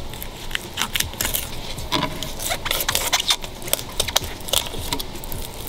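Fillet knife cutting along a mutton snapper's backbone on a wooden board, a run of short, irregular scrapes and clicks as the blade rides over the bones.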